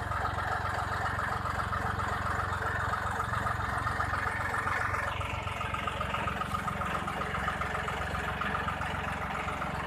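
John Deere 5310 tractor's three-cylinder diesel engine running steadily with an even clatter as the tractor, carrying a harvester attachment, drives up steel loading ramps.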